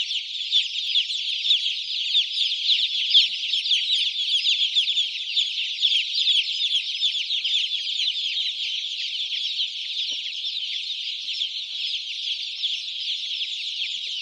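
A crowd of young chicks peeping: many overlapping short, high, downward-sliding chirps that keep up without a break.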